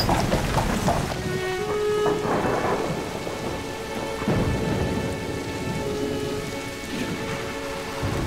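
Heavy downpour with thunder rumbling. From about a second in, soft sustained music notes sound under the rain.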